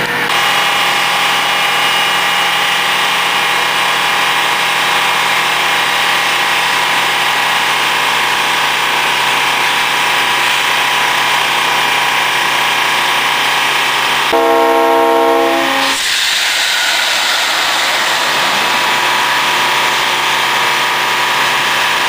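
Engine-driven air compressor of a pumpkin cannon running steadily. About two-thirds through, a multi-tone air horn sounds once for about a second and a half.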